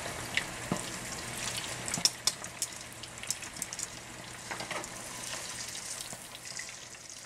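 Chicken wings deep-frying in a pot of hot oil: a steady sizzling hiss with scattered pops and crackles, the bubbling easing slightly as the grease calms down. From about halfway, metal tongs turn the wings in the oil.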